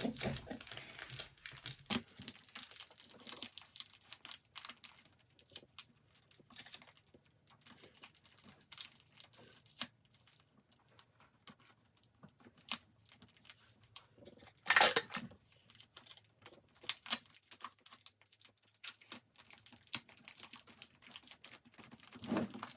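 Gift-basket items and their packaging being handled: intermittent crinkling and rustling with small clicks, a louder rustle about 15 seconds in and another near the end.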